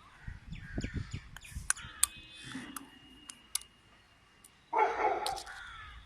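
Light handling knocks and a few sharp clicks, then a loud, harsh animal call about five seconds in.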